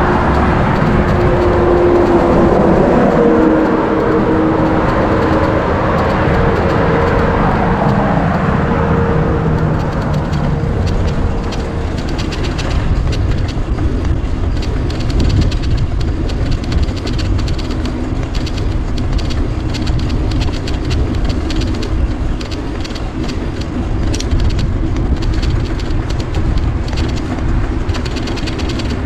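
Wind rushing over a bicycle-mounted camera's microphone while riding, mixed with steady road and traffic noise. A humming drone slowly drops in pitch and fades out around ten seconds in.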